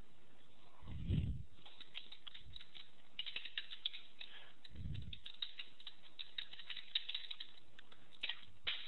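Typing on a computer keyboard: a run of quick key clicks lasting several seconds. Two soft low thumps come about a second in and again midway.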